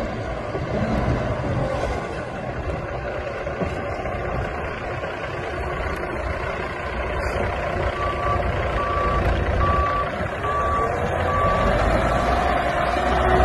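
Cummins ISX diesel engine of a 2005 International 9200i truck tractor running as the truck moves slowly, its pitch climbing near the end. A reversing alarm beeps about five times, evenly spaced, in the second half.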